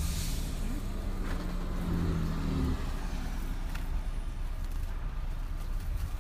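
A motor engine running with a low rumble and a steady hum that rises slightly in pitch about a second in and fades out near three seconds. Plastic wrap crinkles faintly as it is pulled off.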